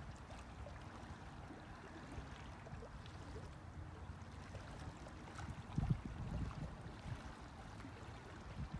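Small waves of Lake Superior lapping on a pebble beach: a steady low wash with a louder surge about six seconds in.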